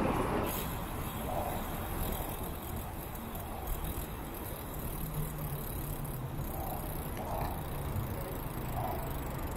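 Steady wind and traffic noise heard from a moving bicycle in city traffic. A louder rush fades within the first half second, and a low steady hum joins about halfway through.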